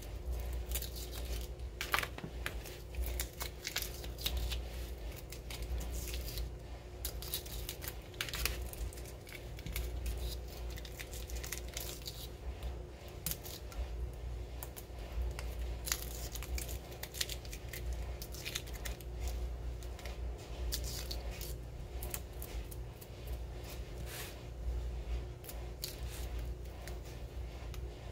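Cut adhesive vinyl decal being weeded by hand: a pointed weeding pick scratching and ticking along the backing sheet while scraps of vinyl peel away and crinkle, in irregular short strokes, over a steady low hum.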